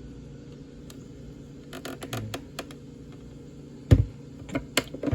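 Light plastic clicks and taps from handling a 2003–2005 Honda Pilot tail light assembly and its inner lens, with one heavier knock about four seconds in.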